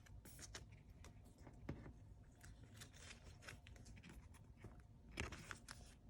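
Faint handling of Pokémon trading cards: soft rustles and light clicks of card stock being turned over, with a few louder rustles near the end, over a quiet room.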